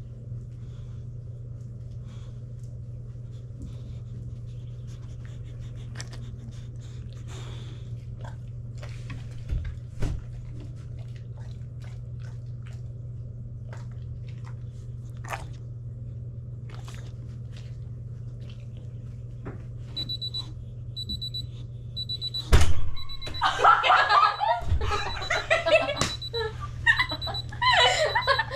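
Steady low hum with faint scattered clicks and taps as a dog moves about. About twenty seconds in, a digital timer starts beeping repeatedly. Then a sharp thump, and children burst out laughing.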